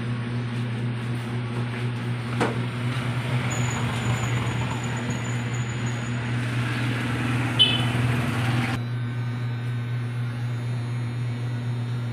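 Electric hair clippers running with a steady low hum, with a sharp click about two and a half seconds in and a brief high chirp a little after seven and a half seconds.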